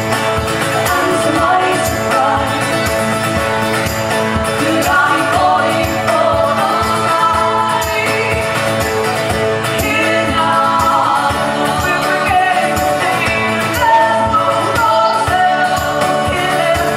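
Live acoustic folk band playing a song: strummed strings in a steady rhythm, with singing voices over them.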